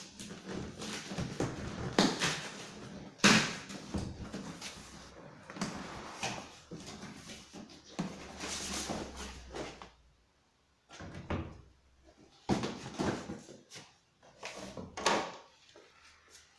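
Packaging being handled during an unboxing: irregular rustling and scraping broken by sharp knocks. The loudest knocks come about two and three seconds in. The last third is quieter, with short pauses.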